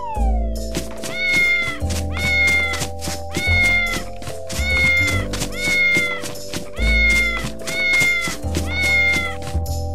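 A cartoon cat meow sound effect, the same meow repeated about ten times at an even pace, a little more than once a second, over children's background music with a pulsing bass. A short falling tone opens it.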